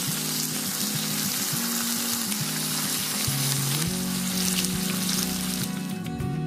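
Thick sauce sizzling hard in hot frying pans as it is stirred, over background music; the sizzle fades about six seconds in.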